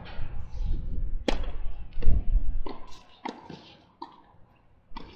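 Tennis ball struck by rackets and bouncing on a hard court during a doubles point: a sharp serve about a second in, then a quick series of hits and bounces. A low rumble runs under the first couple of seconds.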